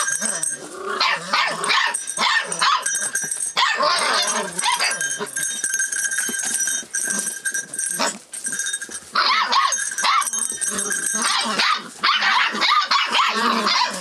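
Six-week-old rough collie puppies play-fighting, with a jumble of high-pitched yaps, barks and growls in bursts and short lulls.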